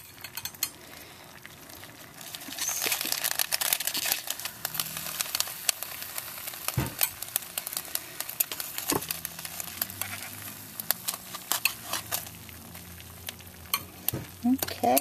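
A metal spatula working in a foil-lined slow cooker to lift out baked potato halves, giving light scrapes and a couple of dull knocks. A dense crackling sets in about two seconds in and carries on.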